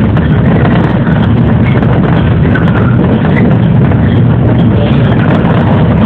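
Steady running noise of a JR 113-series electric train rolling along the track, heard from inside the car: a dense, even rumble with no marked change.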